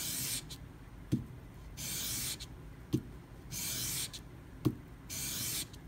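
A steel knife blade drawn flat and straight back across 400–500-grit sandpaper, a short scratchy hiss about four times, roughly every second and a half to two seconds, with a light knock between strokes. The blade is being refinished to a satin scratch pattern.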